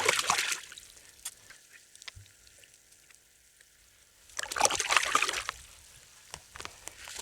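Water poured and sloshed over freshly cleaned fish to rinse them: a splashing burst at the start and another about four and a half seconds in, with small clicks and knocks between.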